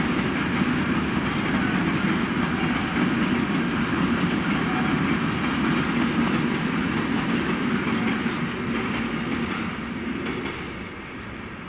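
Freight train wagons rolling past on the track. The sound holds steady, then dies away from about eight seconds in as the end of the train passes.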